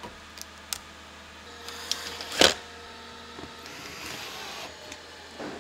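Light clicks and a sharp knock from the plastic underbody panel and its fasteners being handled, then a cordless drill running briefly on an undertray fastener.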